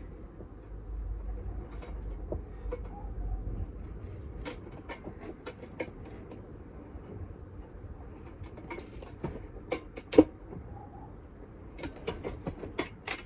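Scattered light clicks and knocks of hand work on the boiler flue, with one sharp knock about ten seconds in and a low rumble over the first few seconds.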